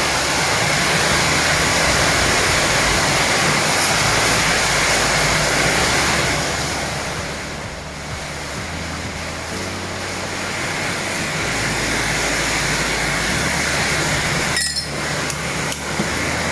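Rain falling steadily, a loud even hiss that eases for a while about eight seconds in and then builds again.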